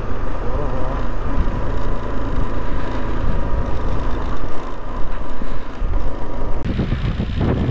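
Motorcycle running on the ride down a mountain pass, its engine mixed with heavy, steady wind and road noise on the rider's camera microphone. The noise changes abruptly near the end.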